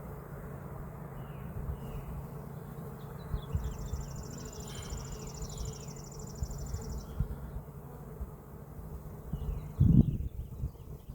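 A mass of Carniolan honeybees buzzing steadily in a low hum. A high, even trill is heard in the middle, and a loud thump comes near the end as the box is handled.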